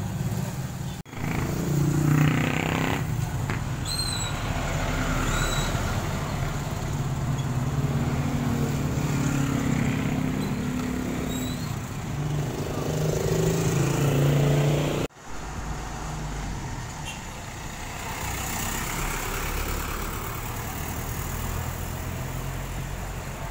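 Town street traffic: engines of passing motorcycles, motorized tricycles and buses, rising and falling in pitch, with a few short high squeaks. The sound breaks off and changes abruptly twice, turning to quieter, steadier traffic noise for the last part.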